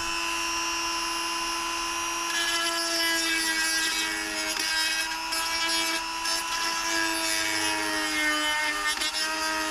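Dremel rotary tool running at high speed and cutting a hole through a plastic motorcycle wind deflector, a steady high whine. Rougher cutting noise joins about two seconds in, and the pitch sags slightly later on as the bit is loaded.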